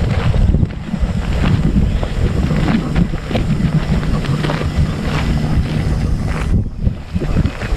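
Wind buffeting the microphone of a dog-worn GoPro harness camera, a loud low rumble, with irregular scuffs and crackles as the dog trots on a dirt trail.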